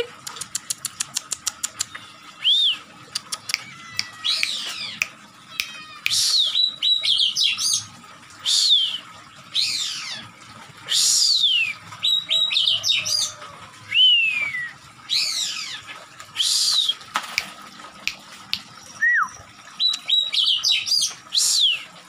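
Oriental magpie-robin (kacer) singing a loud, varied song of sharp down-slurred whistles, phrase after phrase about every second, opening with a fast run of about ten ticks a second. The bird is in an excited, aggressive mood, tail spread and in attacking form.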